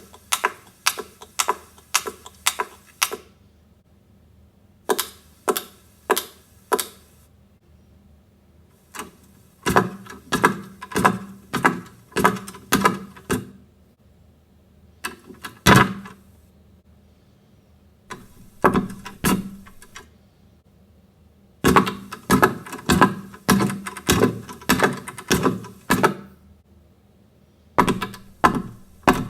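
Bursts of sharp taps or knocks, about three to four a second, in groups of several separated by pauses of a second or two.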